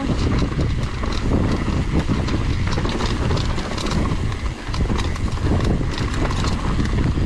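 Mountain bike riding down a bumpy downhill trail: a continuous rumble with many sharp knocks and rattles from the bike over rough ground.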